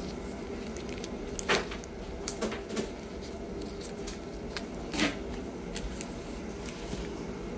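Handling noise: a few brief rustles and clicks, the loudest about a second and a half in and again about five seconds in, over a steady low room hum.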